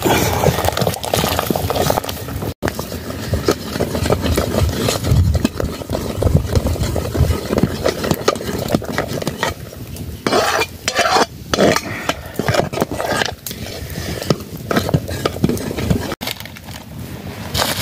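A flat ladle stirring boiling rice in a soot-blackened metal pot, scraping and knocking against the pot's sides and bottom, with a dense run of sharp scrapes about ten seconds in.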